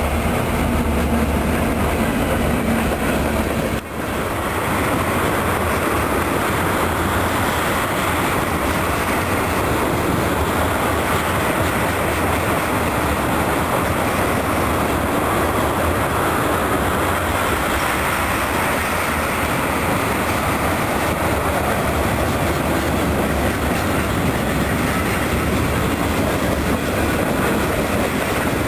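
Freight train going by: the low, steady drone of its IC&E/DM&E diesel locomotives for the first few seconds, then, after a short break about four seconds in, the steady rumble and clickety-clack of tank cars and covered hoppers rolling past.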